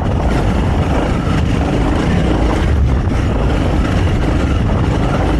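Honda CRF300L's single-cylinder four-stroke engine running on its stock exhaust while the bike is ridden along a gravel and dirt trail, mixed with wind and tyre rumble; a loud, steady sound.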